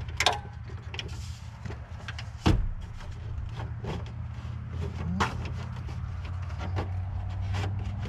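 Plastic dash trim bezel of a Chevy Silverado being pulled loose, with scattered clicks and snaps as its retaining tabs let go; the sharpest snap comes about two and a half seconds in. A steady low hum runs underneath.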